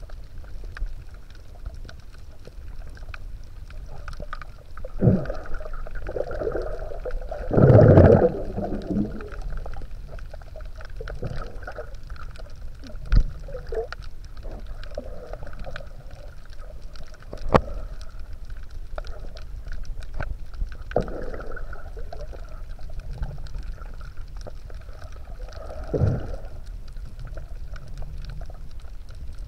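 Underwater sound picked up by an action camera in its waterproof housing: a low steady rumble of moving water, with a few gurgling, bubbling surges, the loudest about eight seconds in, and a couple of sharp clicks.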